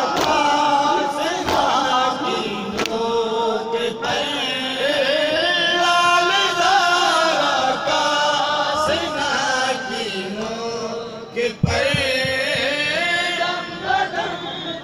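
Male voices chanting a Muharram lament (nauha) in a held, melodic chant, with a few sharp thumps early on and one near the end.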